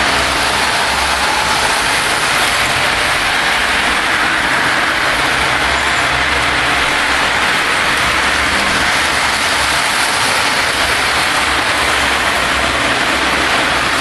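Two electric model trains running together on their loops, a Lionel steam locomotive pulling a long freight and an army train: a steady, really loud running noise of the motors and wheels on the track.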